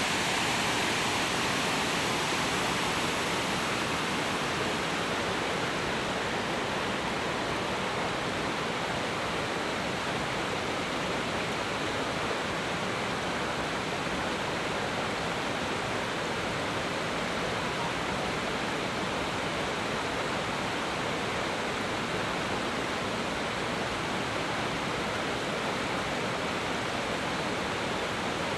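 Heavy storm rain pouring down steadily, a dense even hiss that eases slightly after the first few seconds.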